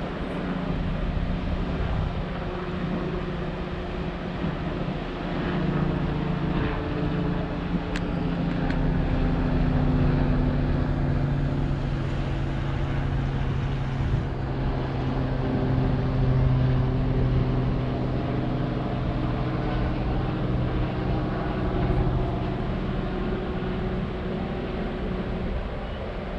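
Viking Line cruise ferry Cinderella passing close by, its engines giving a steady low drone. The hum sinks a little in pitch about halfway through.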